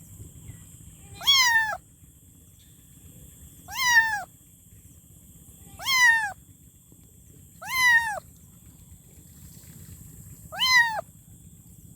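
Kitten meowing five times, one short cry every two to three seconds, each rising then falling in pitch.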